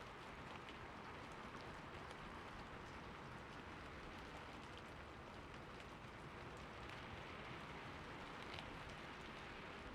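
Steady rain falling, with scattered drops ticking on a surface; no thunder is heard.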